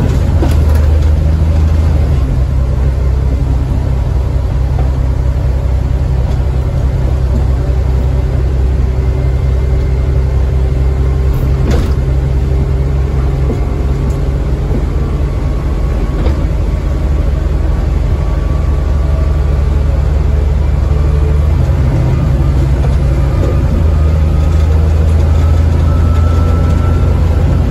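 Volvo B7TL double-decker bus's six-cylinder diesel engine and driveline running under way, heard from inside the passenger saloon: a steady low drone with a faint whine that rises slowly, and a couple of brief knocks from the body about twelve and sixteen seconds in.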